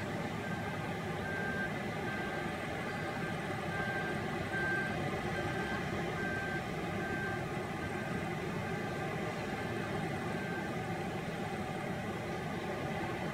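Caterpillar 972M wheel loader's diesel engine running steadily as the machine works, with a reversing alarm beeping about once a second that stops near the end.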